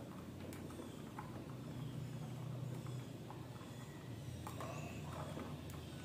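A few scattered light clicks and knocks from a small KVM switch box and its cable connectors being handled, with more of them near the end, over a low steady hum.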